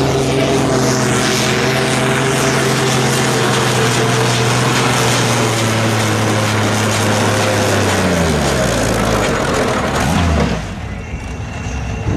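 Antique farm tractor engine running hard under load while pulling a weight-transfer sled, steady in pitch. About eight seconds in its pitch falls as the pull ends, and it drops to a quieter idle near the end.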